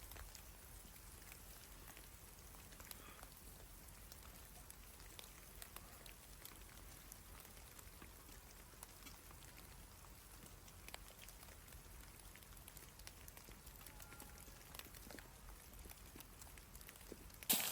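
Faint, sparse patter of drops or sleet tapping on a surface. A much louder noise starts abruptly right at the end.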